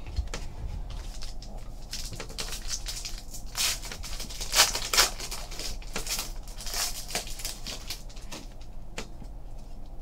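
Foil wrapper of a trading card pack crinkling and tearing as it is ripped open by hand, with cards rustling against each other; a few sharper crackles come around the middle.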